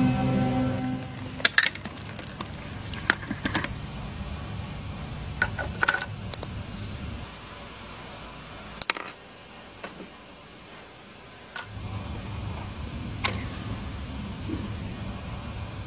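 Scattered sharp metallic clicks and clinks of small hand tools being handled, such as pliers gripping a small metal badge, about eight separate ones over a faint low background.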